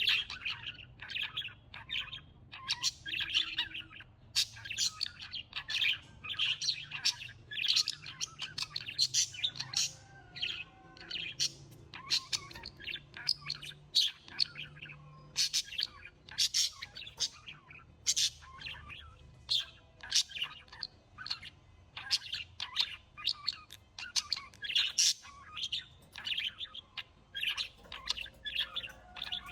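Birds chirping and tweeting: a dense run of short, rapid calls that overlap, with no let-up.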